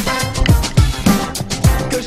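Background electronic music with a steady, deep kick-drum beat.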